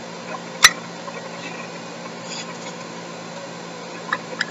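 A single sharp click about half a second in, then two faint clicks near the end, over a steady low hum and hiss: makeup items being handled.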